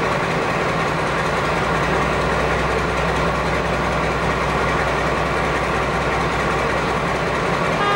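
Class 35 Hymek diesel-hydraulic locomotive D7076, its Maybach V16 engine running with a steady drone as it heads a train slowly towards the station.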